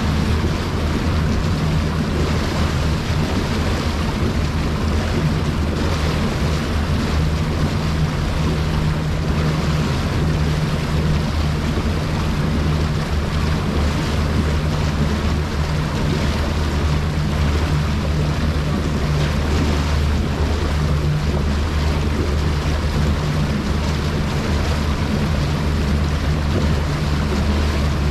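Bass boat running at speed: the outboard engine's steady drone under a constant rush of wind and water past the hull.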